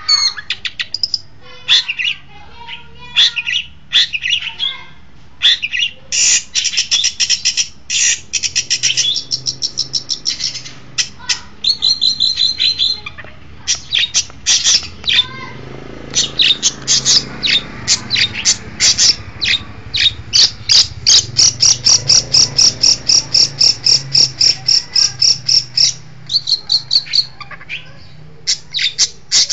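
Long-tailed shrike (cendet) singing: a varied string of sharp, high chirps and short trills, turning about halfway through into a long run of fast, evenly repeated notes.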